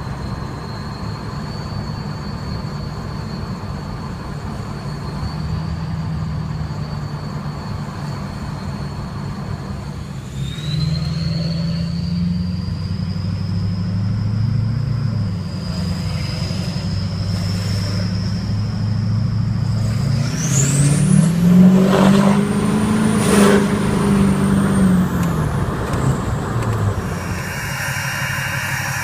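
The 6.6 L LMM Duramax V8 diesel of a 2009 GMC Sierra running under power, with a steady low engine note and a thin high whistle above it. The whistle steps up at about ten seconds. About twenty seconds in it climbs steeply as the engine accelerates and gets louder, then the engine settles back.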